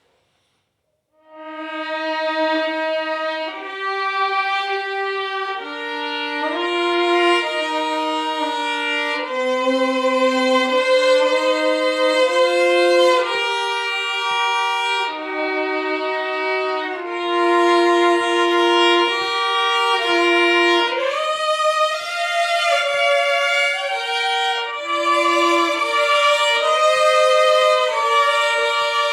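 Violin playing a slow hymn tune with long bowed notes, starting about a second in.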